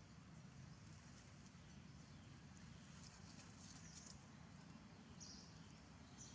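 Near silence: faint outdoor ambience with a low steady rumble, and a few faint, short high chirps about three seconds in and again near the end.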